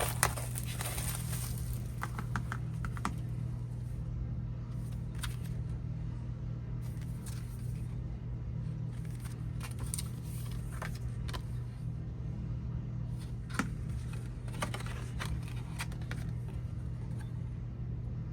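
An album's digipack case and its contents being handled and opened by hand: scattered clicks, taps and rustles of cardboard and plastic every few seconds, over a steady low hum.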